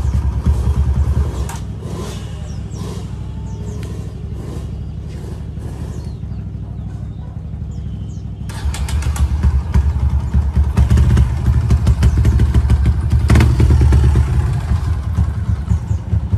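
Vehicle engines running: a steady low rumble at idle that grows louder and busier about eight seconds in, as the vehicles get moving.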